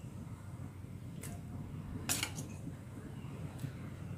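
A ladle clinking twice against a cooking pot of boiling broth, about a second and two seconds in, over a low steady rumble.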